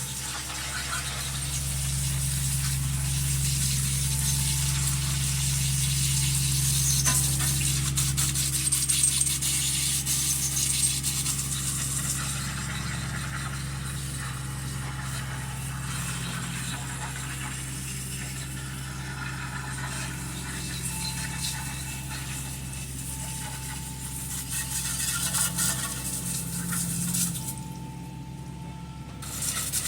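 Garden hose spraying water onto a small engine's metal tins and spattering off as a mouse nest is washed away. A steady low hum runs underneath and fades near the end.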